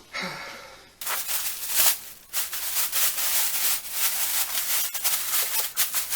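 Packing material rustling and crinkling as it is handled, a dense run of rubbing and crackling that starts about a second in and keeps on.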